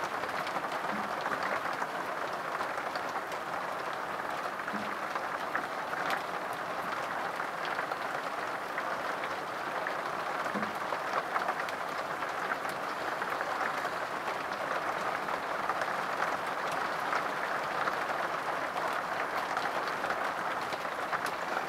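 Steady rain falling on a motorhome's roof and windows, heard from inside, with scattered ticks of single drops.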